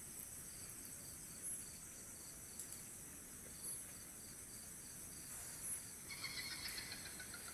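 Crickets and other night insects chirping steadily, with a pulsed chirp repeating a few times a second. About six seconds in, a louder chittering call joins for the last second or so.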